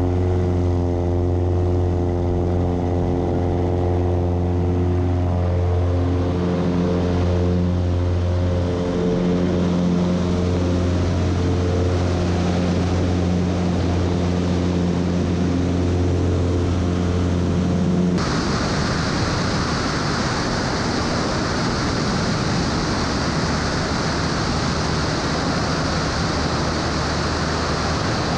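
Aviat Husky light aircraft's piston engine and propeller running in a steady drone through the takeoff roll and climb, heard from a camera mounted on the aircraft. About two-thirds of the way through it switches abruptly to a steady rushing of wind noise.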